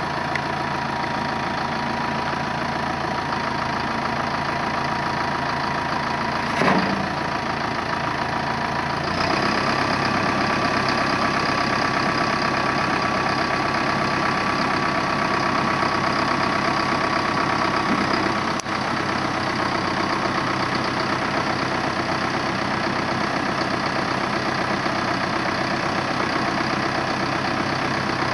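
2008 Massey Ferguson 5480 tractor's 4.9-litre four-cylinder diesel running steadily. About nine seconds in the engine speed steps up and holds while the front loader is worked, then drops back near idle a little past halfway; a brief thump comes just before the step up.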